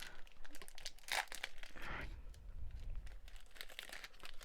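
Foil wrapper of a Pokémon booster pack crinkling and crackling as it is handled and torn open, with the sharpest crackles about one and two seconds in.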